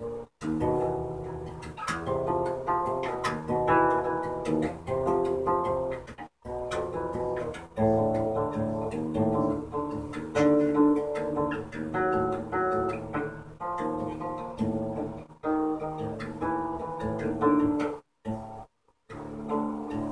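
Solo acoustic guitar played fingerstyle: a continuous run of plucked melodic phrases over chords. The sound cuts out for an instant a few times.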